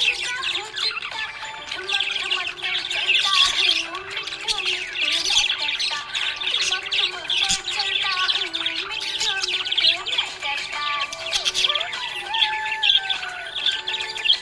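Budgie chatter: a continuous stream of rapid chirps and warbling, high-pitched and without pause.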